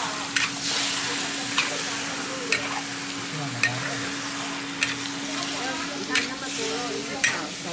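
Sliced pork belly sizzling as it is stir-fried in a wok, with a spatula knocking and scraping the wok about once a second. A steady hum runs underneath.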